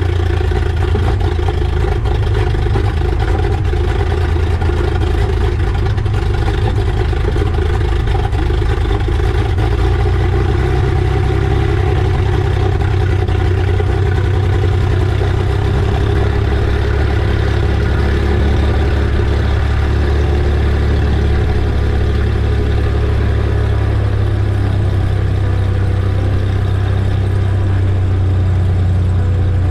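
Cessna 182S SkyLane's six-cylinder Lycoming IO-540 engine and propeller running steadily, heard from inside the cabin as a loud, low, even drone.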